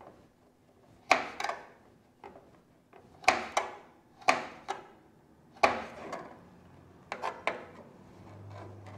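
Kitchen knife chopping chilli on a wooden cutting board: a series of sharp, irregular knocks about once a second, some in quick pairs.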